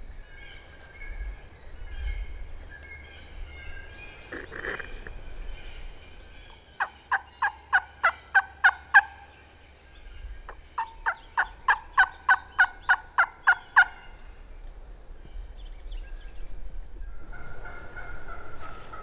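Turkey yelping: two runs of sharp, evenly spaced yelps, about ten notes then about a dozen, with a short pause between, over faint songbird chirps and wind.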